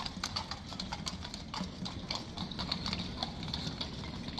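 Horse hooves clip-clopping, a quick run of sharp hoof clicks over a low, steady street rumble.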